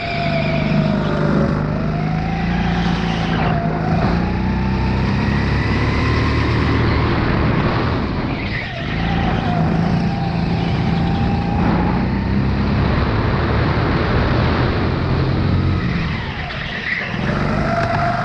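Sodi RX8 rental kart's four-stroke engine running hard from onboard, its note dropping three times as the kart slows for corners and climbing again each time it accelerates out.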